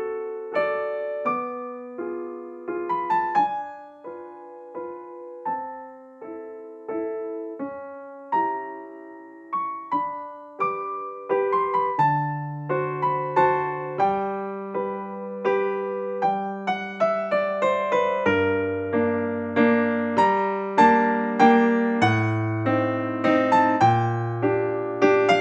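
Background music: a gentle piano or electric-piano melody, with a lower bass part joining about halfway through.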